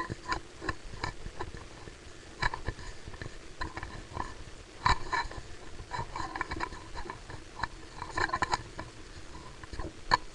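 Sniffing and breathing close to a webcam microphone, with scattered short clicks and bumps.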